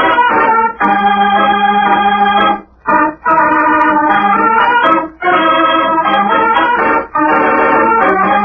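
Organ interlude typical of old-time radio drama: held chords in phrases of about two seconds, each ending in a brief gap before the next begins.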